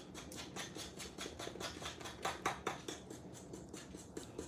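A fork beating eggs in a well of flour on a marble pastry board: quick, light ticks and scrapes of the tines against the stone, about five or six a second, a little harder around the middle.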